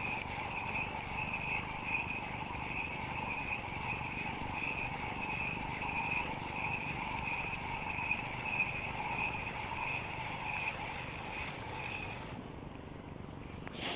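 Fishing reel being cranked to bring in a hooked fish, a steady whirring that pulses with each turn of the handle and stops near the end.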